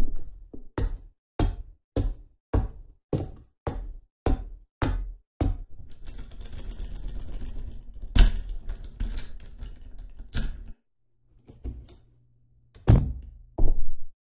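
A steady series of heavy knocks or thuds, a little under two a second. About six seconds in they give way to a denser, noisier stretch with one louder hit, then a short pause before the knocks start again near the end.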